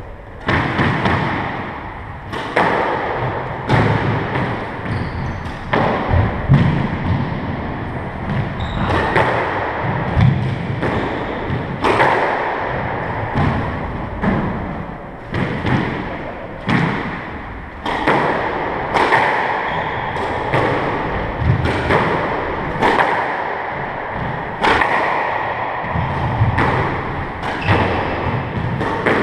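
Squash ball being struck by rackets and smacking off the court walls, sharp hits about one or two a second, each followed by the court's ringing echo.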